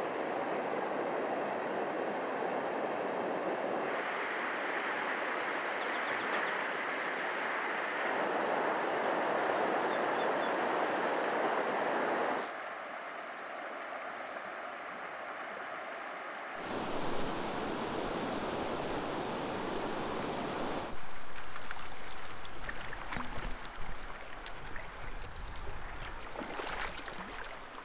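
Shallow river current rushing steadily over riffles. Its level and tone shift a few times. A deeper rush comes in about two-thirds of the way through, followed by scattered clicks and knocks near the end.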